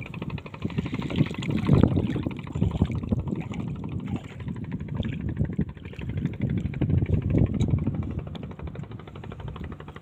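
Small boat's engine running with a rapid, even chugging, over splashing water, growing louder and fading again twice.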